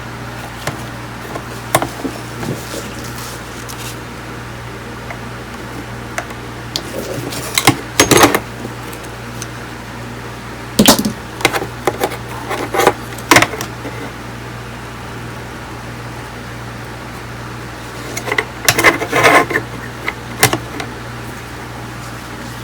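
Clicks, knocks and clatter of tools and parts being handled in bench repair work on an audio unit's power supply, coming in three short bursts, over a steady low hum.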